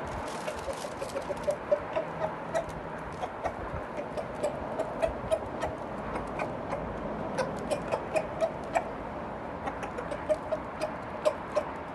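Asil rooster clucking in short, repeated notes, about two or three a second with brief pauses, mixed with sharp clicks.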